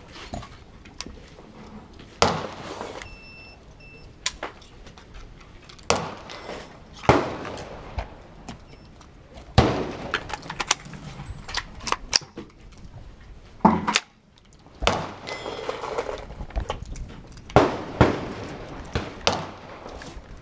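Gunshots at a shooting range: about a dozen single handgun shots at uneven intervals, some louder than others, each with a short echoing tail.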